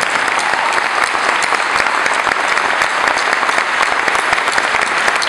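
A large audience applauding steadily: a dense patter of many hands clapping at once.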